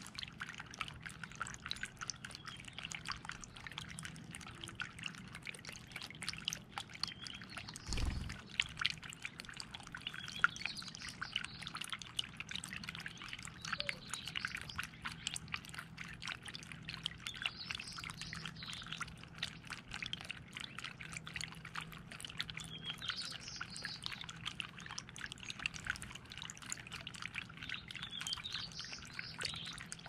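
Small recirculating fountain birdbath trickling and dripping steadily over its stone into the basin. Birds chirp faintly in the background a few times, and there is a single low thump about eight seconds in.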